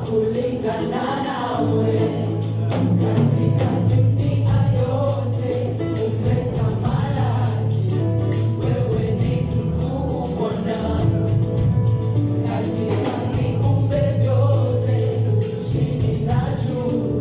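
Live gospel worship music at rehearsal: a group of voices singing together over a band, with a steady bass line and regular percussion beats.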